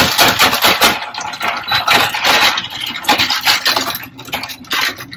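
Ice cubes clattering and clinking as they are scooped out of a countertop ice maker, a dense run of rapid rattles.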